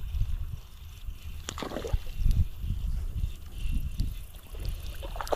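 Wind rumbling on the microphone while a spinning reel is cranked to retrieve a lure.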